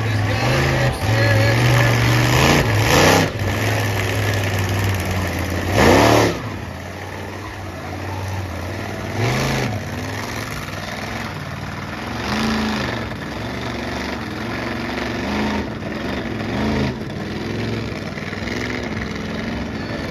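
Monster truck engine running and revving in repeated bursts, the loudest surge about six seconds in, with smaller revs after it.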